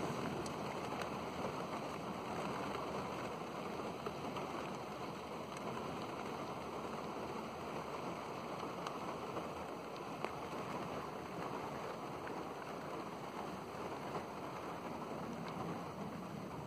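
Heavy thunderstorm rain falling steadily, with scattered drops tapping close by.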